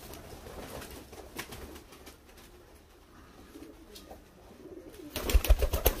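Uzbek two-crested pigeons cooing softly in a loft. About five seconds in, a burst of loud, rapid rustling and knocks takes over.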